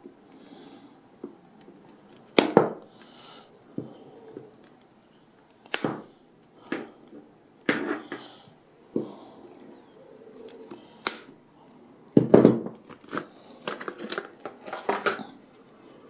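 Side cutters snipping the plastic ties on a coiled steel cable lock, with handling noise of the rubber-covered cable: a string of sharp snaps and clicks, thickest near the end as the cable springs loose.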